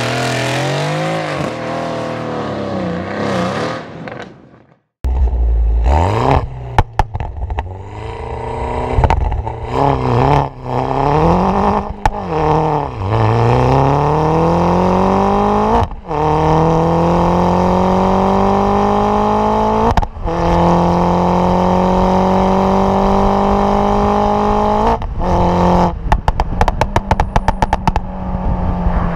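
Stage 1 JCW Mini Cooper S GP2's turbocharged four-cylinder, heard at the exhaust, accelerating hard through the gears: the engine note climbs in each gear and drops back at each upshift, about four times. Sharp pops and crackles from the exhaust come early on the run and in a rapid string near the end as the throttle is lifted. A different car's engine is heard for the first few seconds, followed by a short silence.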